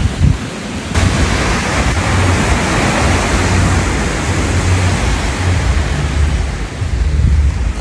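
Surf washing on a sandy beach, a broad hiss that swells about a second in and slowly fades, with wind rumbling on the microphone.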